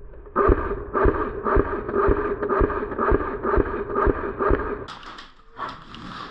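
Footsteps at a walking pace, about two steps a second, stopping about five seconds in.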